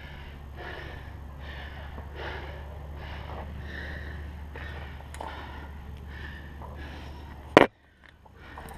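A climber's rapid, heavy breathing, a breath roughly every half second or more, over a steady low hum. Near the end there is one sharp, loud knock, the camera striking the rock, and then the sound drops away for about a second.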